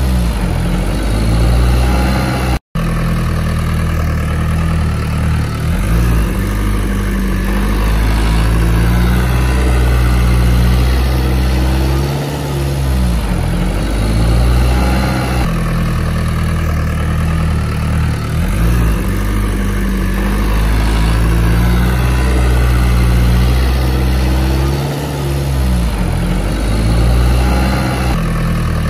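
Heavy diesel engine of earthmoving machinery running steadily, its deep note dipping briefly a few times. All sound cuts out for a moment about two and a half seconds in.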